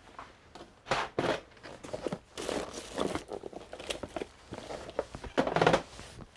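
Irregular crinkling and rustling handling noises, in several bursts, the loudest about a second in and again near the end.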